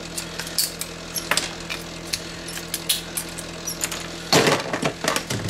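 Pliers prying and snapping an aluminum heatsink and other parts off a CRT monitor's circuit board: scattered sharp clicks and cracks, with a louder burst of crackling and snapping a little over four seconds in.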